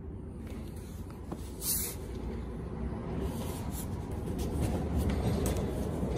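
A cardboard box being moved and handled at a Stago Salut stapler, scraping and rustling, with one short sharp snap about two seconds in and a few fainter ticks after.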